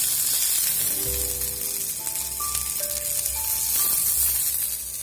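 Lamb chops sizzling as they fry in hot oil in a pan. Gentle background music with held notes comes in about a second in.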